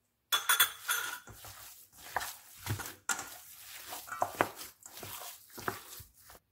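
Raw ground beef being kneaded by hand in a stainless steel bowl: irregular squishing and slapping, with sharp knocks where the hand hits the bowl, starting a moment after the beginning.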